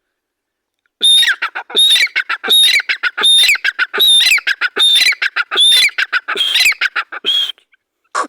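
Teetar (francolin) calling: a loud series of about ten harsh, rattling call phrases in quick succession, roughly one every 0.7 seconds, starting about a second in and breaking off near the end, followed by a few short single notes.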